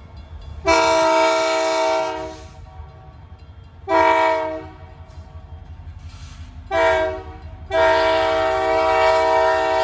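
Canadian Pacific locomotive's air horn sounding four loud blasts of several notes at once: a long one, two shorter ones, then a long one that runs on past the end, over a low rumble of the train.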